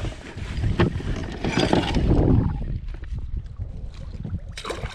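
Wind buffeting the microphone in a steady low rumble, with brief bursts of splashing and handling noise about a second in, around two seconds in, and near the end.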